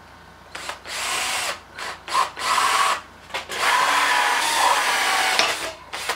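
Cordless drill driving a 1¼-inch hole saw into a wood block, cutting out a round wooden plug. It runs in several short spurts, then one longer run of about two seconds that stops just before the end.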